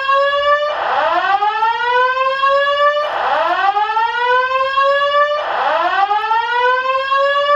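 Building fire alarm sounding its evacuation whoop: a loud tone that rises in pitch over about two and a half seconds, cuts off and starts again, about three times.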